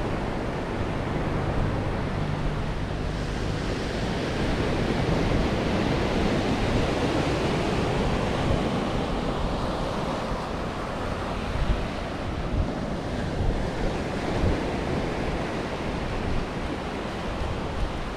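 Ocean surf breaking and washing up a sandy beach, a steady rushing noise, with wind buffeting the microphone in short low thumps through the second half.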